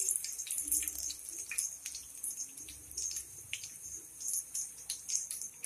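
Hot frying oil sizzling with many irregular sharp crackles around a breadcrumb-coated chicken breast as it is lifted out of the pan, fried through.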